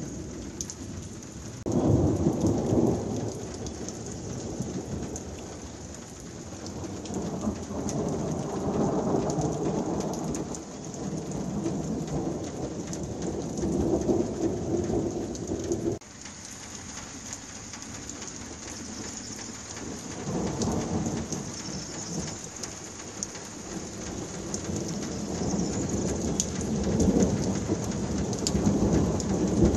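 Heavy downpour hissing steadily, with repeated rolls of thunder rumbling low over it: one loud peal about two seconds in, a long roll through the middle that cuts off suddenly, and more rumbling near the end.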